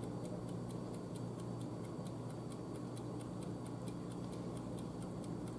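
Steady, rapid, even ticking, about four or five ticks a second, over a faint low hum.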